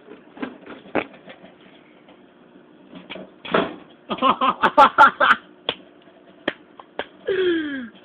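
Microwave oven humming while a metal toy car inside arcs: scattered crackling snaps, then a fast run of loud pops about four to five seconds in.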